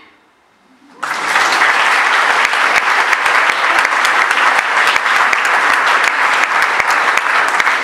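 Audience applause at the end of a song: about a second of near-quiet, then a crowd clapping steadily and loudly.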